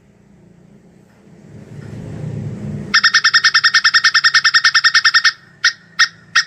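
Plantain squirrel (tupai kelapa) giving its chattering call: a rapid run of sharp chips, about ten a second for two seconds, then three single chips near the end. Before the call, a low rumble swells.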